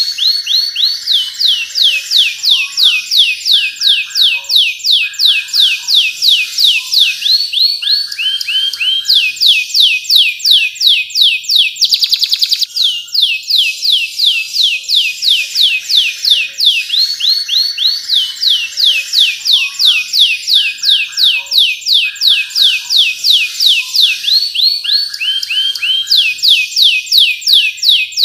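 Domestic canary singing a long, fast song: rapid trills of high falling whistle notes, about seven a second, broken by lower buzzy rolls.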